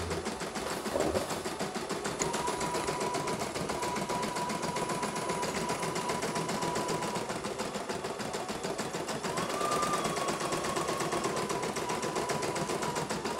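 CNY E900 computerized embroidery machine stitching at a fairly high speed, its needle running in a fast, even patter, with a thin whine that comes and goes twice. It is running smoothly.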